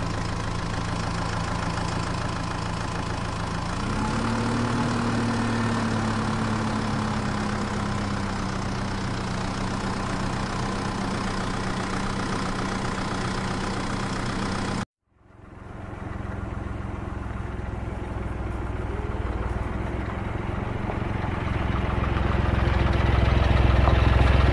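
Engine running sound from RC toy JCB backhoe loaders: a steady hum that rises a little in pitch about four seconds in. It cuts out suddenly at about fifteen seconds, and a lower engine rumble then grows louder toward the end.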